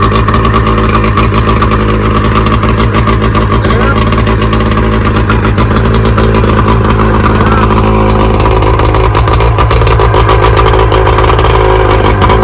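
Mercury 115 hp saltwater outboard running steadily, firing on all cylinders now that its disconnected spark plug wire has been put back. Its note changes slightly about eight and a half seconds in.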